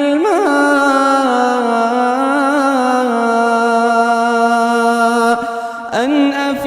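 A reciter's voice chanting the Quran in slow melodic tajwid, holding one long drawn-out vowel with wavering ornamental turns. The voice pauses briefly for breath about five and a half seconds in, then takes up the note again.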